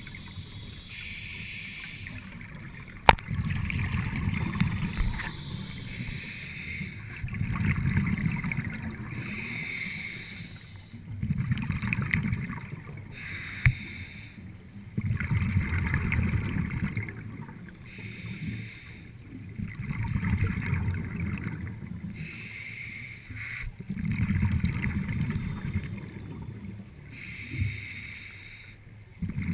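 Scuba diver breathing through a regulator, heard underwater: a hissing inhale followed by a rumble of exhaled bubbles, about one breath every four seconds. A single sharp click about three seconds in.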